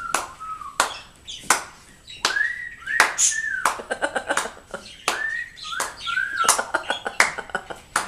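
African grey parrots making sharp clicks and short whistled notes that rise and then hold, with quick runs of ticking clicks about four seconds in and again near the end.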